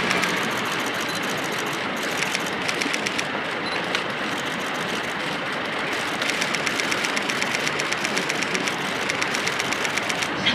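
Steady outdoor street background noise, with two runs of rapid, even clicking, one about two seconds in and a longer one from about six seconds in.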